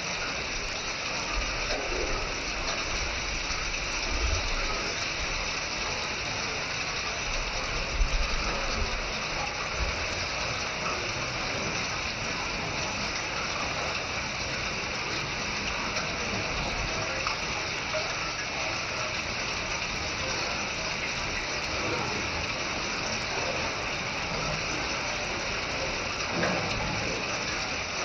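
Hail falling steadily: a dense, continuous rattle of many small hailstones striking, with a few low thumps in the first ten seconds.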